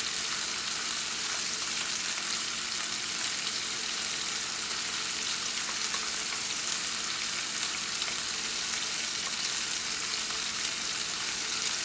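Chicken pieces and chicken livers sizzling steadily in hot oil as they brown in a pot, with a scattering of small crackles and pops.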